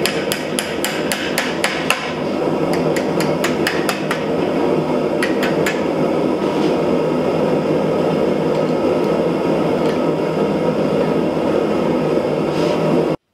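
Hand hammer tapping a red-hot steel bar against the pins of a bending fork on an anvil: quick light metallic strikes, several a second at first, then in short clusters and only now and then later. A loud steady rushing noise runs underneath, and everything cuts off abruptly near the end.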